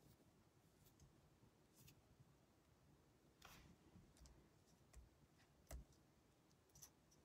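Near silence: quiet room tone with a few faint clicks and taps in the second half.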